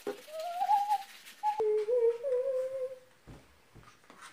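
A person humming two drawn-out notes, the first short and rising, the second longer, lower and wavering, with a click between them. A few soft knocks follow near the end.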